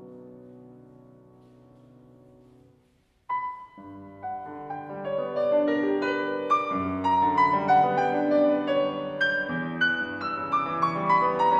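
Steinway grand piano playing a classical piece. A soft held chord dies away over the first three seconds, then after a brief pause a sudden loud attack opens a busier, louder passage of many notes that keeps building.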